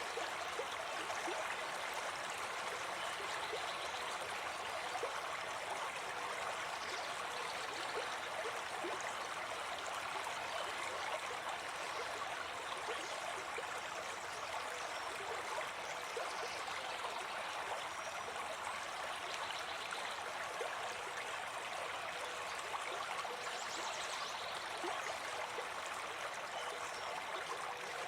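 Forest stream flowing steadily, a continuous babble of running water.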